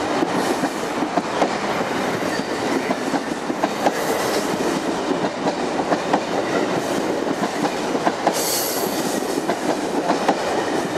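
Stainless steel passenger coaches passing close by on the near track, a steady rush of wheel and rail noise with repeated clicks over the rail joints. A brief high hiss comes about eight seconds in.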